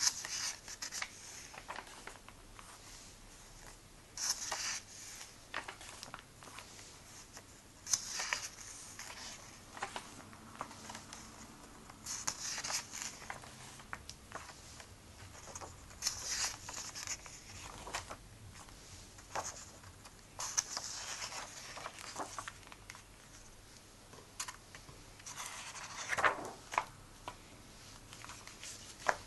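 Comic book pages being turned by hand: a short papery swish and rustle about every four seconds, with softer rubbing of the hand on the paper in between.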